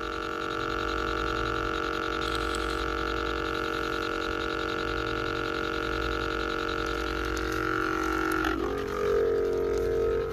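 Steady electronic drone of several held tones from a ghost-hunting device, which the investigators switched on to give spirits 'energy'. About eight and a half seconds in it shifts to a different, louder tone.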